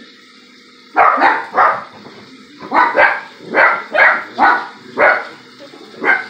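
A dog barking, about ten barks in quick succession starting about a second in, one to two a second.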